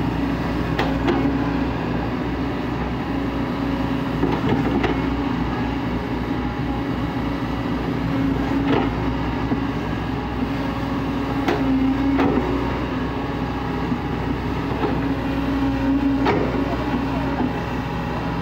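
Kobelco SK140 hydraulic excavator's diesel engine running under work, its note rising and falling a little. Sharp metallic clanks come about every few seconds.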